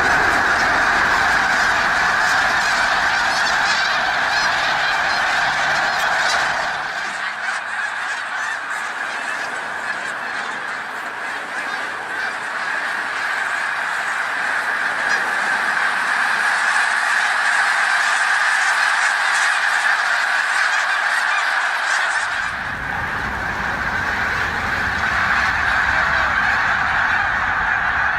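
Dense, continuous calling of a large flock of birds, many voices at once. The sound changes abruptly about 7 seconds in and again about 22 seconds in, growing thinner in the low end in between.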